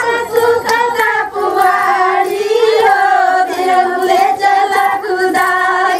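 Women singing a song together, several high voices overlapping in long held notes.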